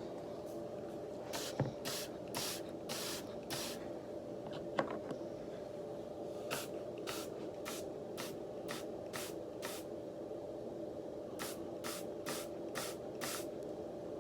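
Spray bottle squirted in three quick runs of several sprays each, about two a second, over a steady low background hum.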